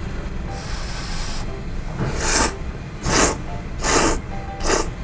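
A person slurping thick Jiro-style ramen noodles: a soft, airy slurp about half a second in, then four short loud slurps about a second apart in the second half.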